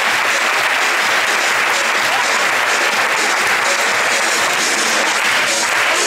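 Audience applauding steadily.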